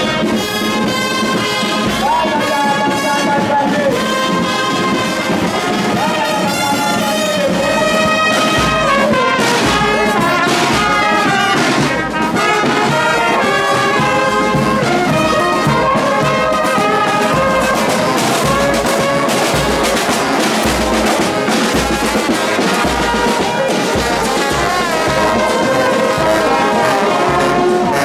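Marching brass band playing: trumpets, euphoniums and sousaphones sound held notes in harmony over a steady bass drum beat.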